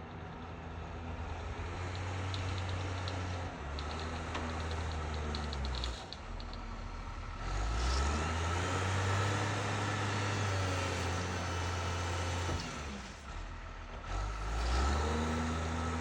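Front-end loader's engine running and revving up and down as it works, with its pitch climbing quickly about halfway through and again near the end.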